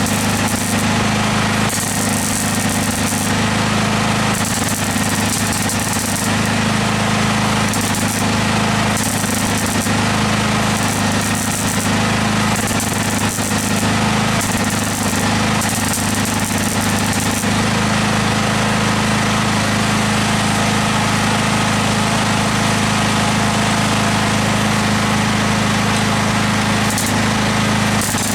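MIG welder running: a steady electrical buzz under a continuous crackle, with hissier spells coming and going as the arc runs in short beads on the car body's sheet steel.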